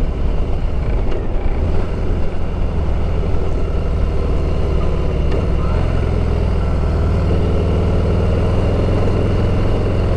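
Harley-Davidson V-twin engine running steadily as the motorcycle is ridden at low speed, with road and wind noise.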